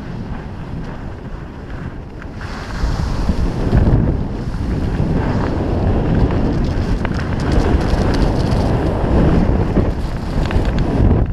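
Wind buffeting a GoPro's microphone during a fast ski descent, louder from about two and a half seconds in as speed builds, with skis scraping and chattering over cut-up snow.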